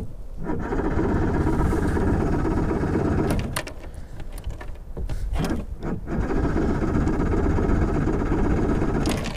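Bass boat's outboard motor, cold in below-freezing weather, cranked from the ignition key and struggling to catch. It runs in two stretches with a weaker patch and a few clicks between them, and needs time to warm up before it will keep running.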